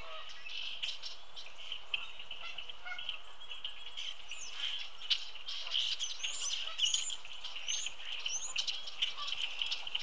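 A flock of red-winged blackbirds and European starlings calling: continuous chattering, joined about halfway through by a run of sharp, sliding whistled calls.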